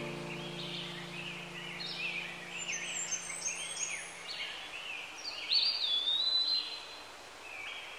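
Birds chirping and whistling in many short calls, with a held chord of background music fading out over the first few seconds.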